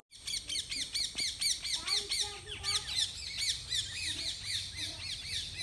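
Small birds chirping: a fast, continuous string of quick rising-and-falling chirps, about four a second.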